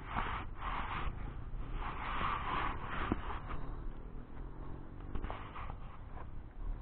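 Rustling and scraping of dry grass and leaves as someone moves through them, in two longer bursts within the first three seconds, then scattered light crackles.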